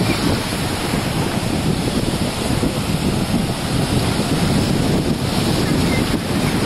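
Ocean surf washing and breaking over shallow water, a steady rush, with wind buffeting the microphone.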